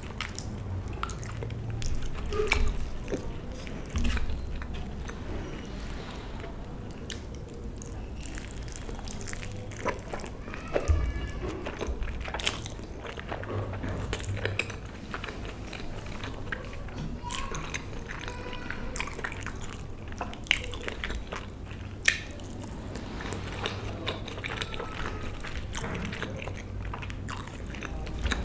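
Person biting and chewing food close to the microphone, with many small irregular clicks from the mouth.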